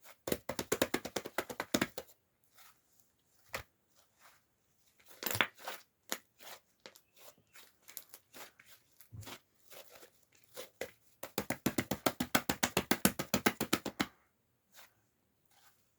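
Sherbet-textured slime being pressed and squeezed by hand: two long runs of rapid crackling pops, about ten a second, with scattered single squishes and clicks between them.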